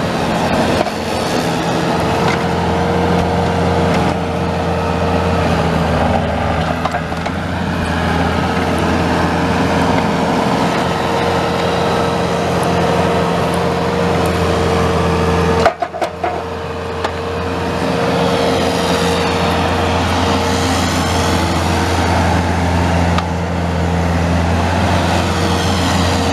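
Kubota V2203 four-cylinder diesel engine of a 2002 Bobcat 331D compact excavator running steadily, with a brief break a little past halfway before it carries on.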